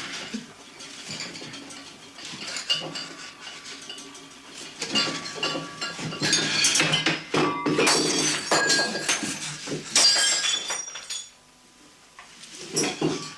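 Clinking and clattering, like glass and crockery, with many sharp knocks and a few short ringing tones, falling almost quiet for about a second near the end.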